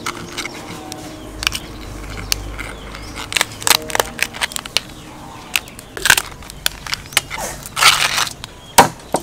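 Raw blue crab shells being prised off and broken apart by hand: a run of sharp cracks and snaps. There is a longer crunching stretch near the end.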